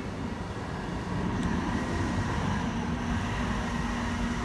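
Class 139 Parry People Mover railcar running slowly past along the platform as it draws in to terminate. It gives a steady low rumble and hum that grows a little louder about a second in, and a held low tone joins about two-thirds of the way through.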